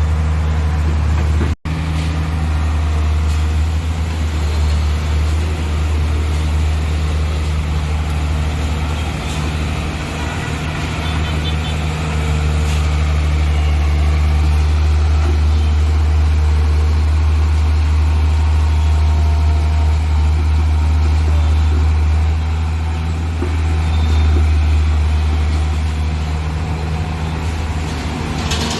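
Heavy diesel engine of a backhoe loader or dump truck running steadily at a low, even drone, with a brief break in the sound about a second and a half in.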